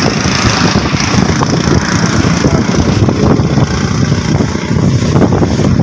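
Wind buffeting the microphone, an irregular gusty rumble.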